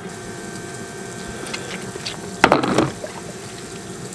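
Fresh water running steadily through a hose into a motorhome's tank. About two and a half seconds in comes a short loud clatter, as a portable toilet cassette is set down on the concrete.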